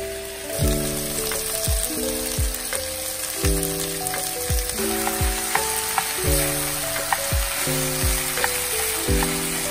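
Chopped onion, bell peppers and cubed soy ham sizzling in a stainless steel frying pan, the hiss growing louder about half a second in. Background music with held chords and a thudding beat plays over it.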